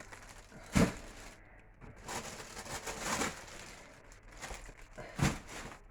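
Two sharp knocks, about a second in and near the end, with soft rustling and shuffling in between: items being handled and moved about while a fridge-freezer is cleaned out.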